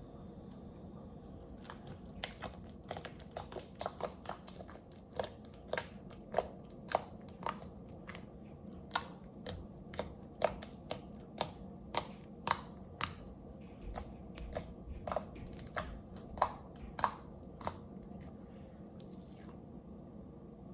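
Sticky slime of clear glue and Vaseline being worked by hand or spatula, making irregular wet clicks and pops about two a second. The clicks stop a couple of seconds before the end.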